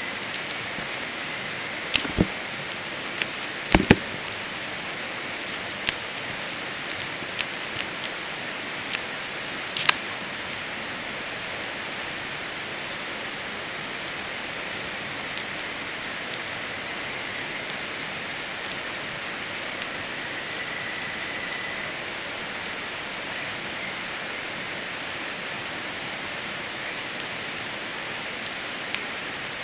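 Steady rush of a river, with sharp pops and crackles from a wood campfire, most of them in the first ten seconds.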